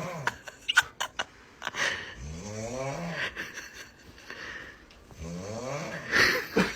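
Snoring: slow, drawn-out snores, each a pitched rasp that rises and then falls, coming about every three seconds. A few sharp clicks fall between the first snores, and a louder hissing breath comes near the end.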